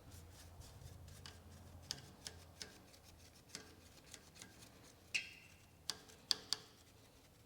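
Faint scattered clicks and light taps of a small oiling brush and fingertips working over the metal ways of a mini lathe, with a few sharper clicks near the end, over a faint low hum in the first half.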